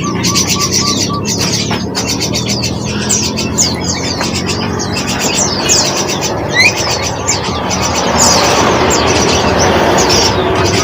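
Many small songbirds chirping and twittering together, rapid high calls and quick downward-sweeping notes overlapping without pause, over a steady low background hum.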